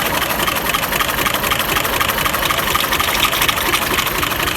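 Engine idling steadily, freshly started, with a fast, even firing rhythm.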